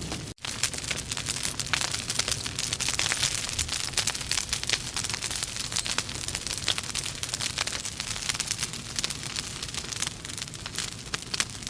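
Wood logs burning in a fireplace, crackling and popping with many quick sharp snaps over a steady hiss of flame. The sound drops out for an instant just after the start.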